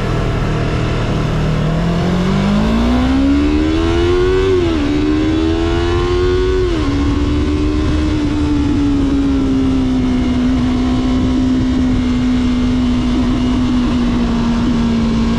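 Yamaha YZF-R3's 321 cc parallel-twin engine, on its stock exhaust, accelerating through two upshifts. The revs climb, drop sharply at a shift about four and a half seconds in, climb again and drop at a second shift about seven seconds in, then settle into a steady cruise. A low wind rumble runs underneath.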